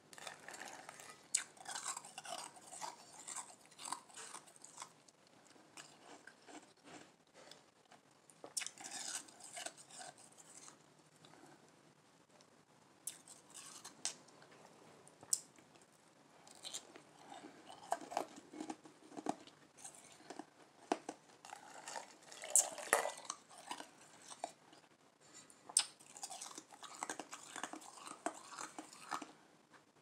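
A person chewing Igloo ice with soft crunches, an uneven run of crisp crunches and bites with a few sharper cracks.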